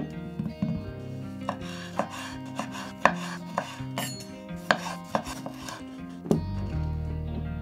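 Cleaver-style kitchen knife cutting cherry tomatoes in half on a wooden cutting board: sharp knocks of the blade against the board, roughly two a second, over soft background music.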